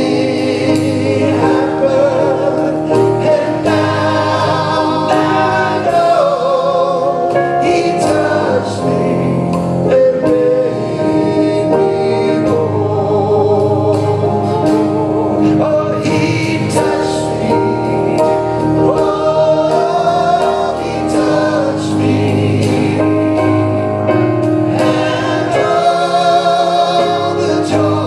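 Live gospel worship song: voices singing a melody with wavering held notes over keyboard and drum-kit accompaniment, played steadily throughout.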